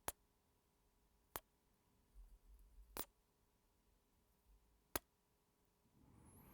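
Near silence broken by four sharp, isolated clicks at uneven intervals, with soft breathing starting near the end.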